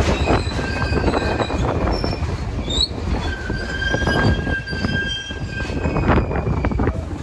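New York City subway train running with its wheels squealing on the rails. Several high, steady squeal tones come and go over a low rumble and the clicking of the wheels on the track.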